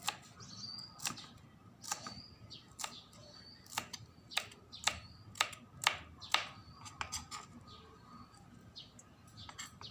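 Knife chopping on a cutting board: about a dozen sharp knocks at an uneven pace, coming faster in the middle, with faint bird chirps behind.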